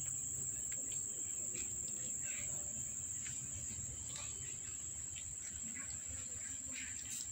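Insects trilling in a steady high-pitched drone, with faint scattered chirps and ticks.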